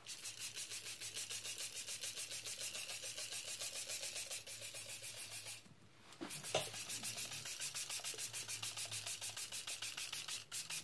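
Plastic trigger spray bottle misting ivy leaves in rapid, evenly repeated squirts, about seven a second because the footage runs at double speed, with a short break a little past halfway.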